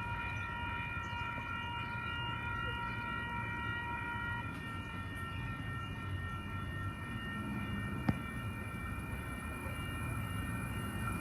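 An 8-car Oscar (H-set) electric train giving off a steady whine of several high pitched tones over a low rumble; the lowest of the tones stops about four seconds in. A single sharp click about eight seconds in.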